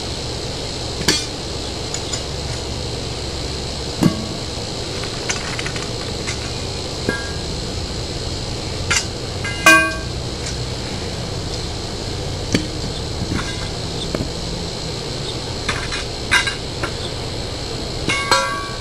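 Metal poles of a sling stand being pulled apart and handled during disassembly: scattered knocks and clinks every second or few, the loudest a ringing metallic clink just under ten seconds in, over a steady background hiss and hum.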